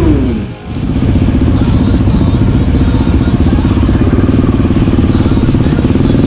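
Motorcycle engine running at a steady speed, a low even drone, after a short drop in loudness about half a second in.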